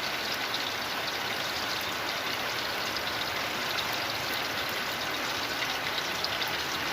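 Pork leg deep-frying in hot oil: a steady sizzle with small scattered crackles and pops from the oil.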